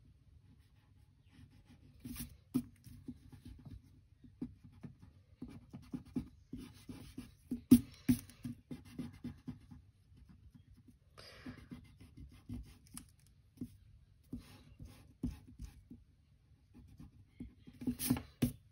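Staedtler plastic eraser rubbing out pencil lines on paper, in runs of quick back-and-forth strokes with short pauses between them.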